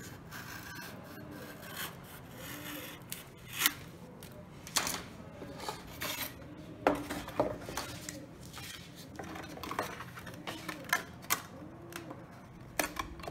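Snap-off hobby knife cutting foam board in irregular short scraping strokes, then the foam pieces rubbing and knocking as they are handled and flexed.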